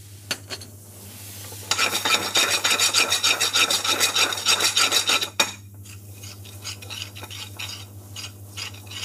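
Long-handled metal spoon scraping fast around a metal frying pan as chili and curry powder are stirred into a curry paste. The rasping scrape is loudest from about two seconds in to about five seconds, then turns to lighter scrapes and taps as the stirring slows.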